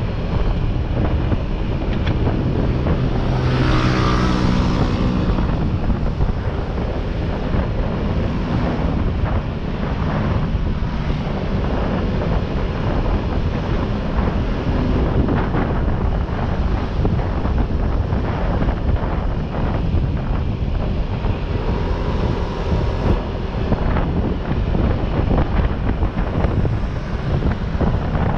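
Heavy wind buffeting the microphone during a ride, with a rumbling vehicle noise underneath and a louder swell about four seconds in.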